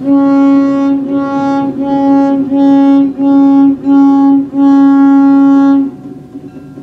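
Switcher locomotive's single-tone air horn sounding loud and close in a string of about seven short blasts run close together, the last one the longest, cutting off about six seconds in.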